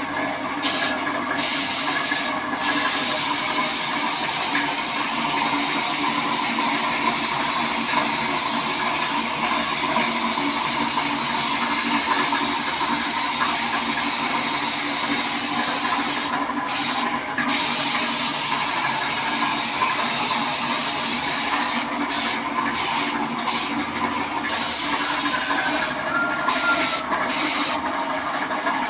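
High-pressure spray hissing steadily, let off briefly several times: a few short breaks near the start, two around the middle and a run of quick on-off breaks near the end, while a machine keeps running underneath.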